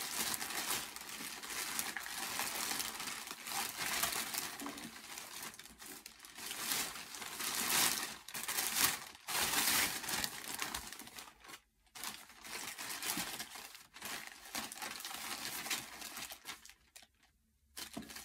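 White plastic poly mailer bags crinkling and rustling as they are opened and handled, in an irregular run of crackles, with short lulls about twelve seconds in and near the end.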